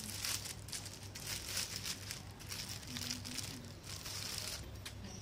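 Plastic cling wrap crinkling as it is peeled off a bowl of food: a dense run of small crackles that dies away near the end.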